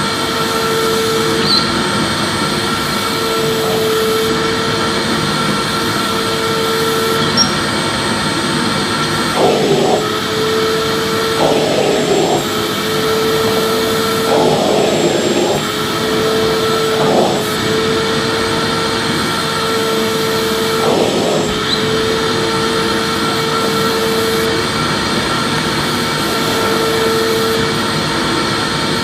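Vacuum cleaner running steadily with a loud rushing hum and a whine that drops out and comes back every few seconds, with a few brief rougher surges about halfway through.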